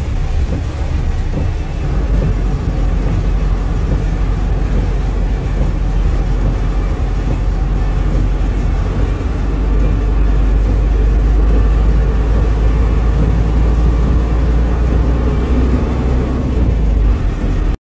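Steady low engine and road rumble inside a truck cab driving through heavy rain, with the windscreen wipers running.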